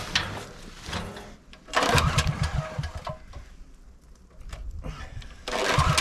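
Two pulls on a portable generator's recoil starter, the first about two seconds in and the second near the end. Each is a short whir of the cord over fast low pulsing as the engine turns over without catching. The engine is cold and had no service this year.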